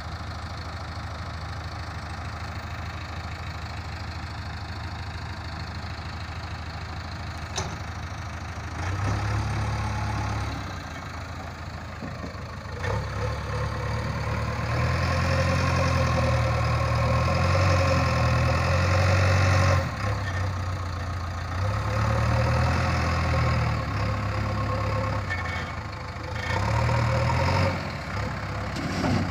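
JCB 3DX backhoe loader's diesel engine idling steadily, then revving up in several surges from about nine seconds in as the front bucket is worked to scoop sand and lift it.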